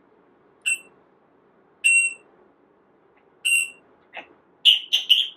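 A parrot imitating an electronic alarm beep, three short steady beeps like a smoke alarm's, about a second and a half apart, then a quick run of short whistled chirps near the end.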